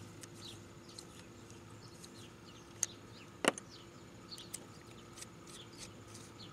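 Two sharp clicks a little under a second apart, about three seconds in, from a small plastic license plate light housing being handled against the car's rear panel, over faint outdoor background with short bird chirps.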